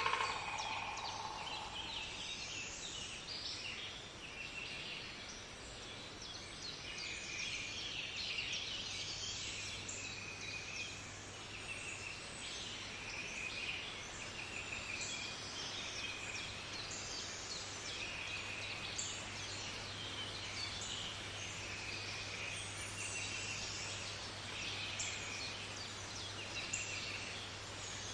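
Wild birds calling over and over, many short rapid trills and chirps overlapping, with a steady low hum underneath.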